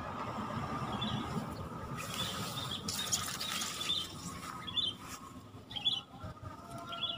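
A small bird chirping, one short call about every second. A rustling noise runs through the middle.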